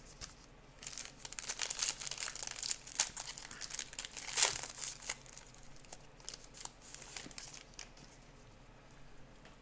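Crinkling and tearing of a trading card pack's wrapper as it is handled and opened: a dense run of sharp crackles over the first few seconds, loudest about halfway through, then sparser rustles that die away.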